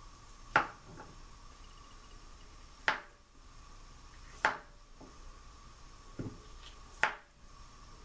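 Knife slicing through boiled, peeled potatoes and knocking on a cutting board, five separate strokes at an unhurried pace.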